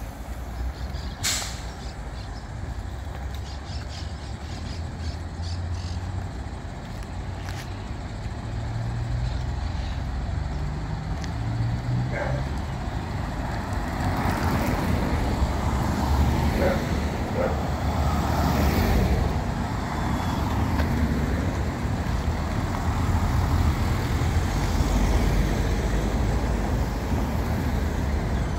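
Street traffic: a motor vehicle's engine rumbling low, its pitch climbing as it accelerates about eight to twelve seconds in, then growing louder through the second half. A single sharp click sounds about a second in.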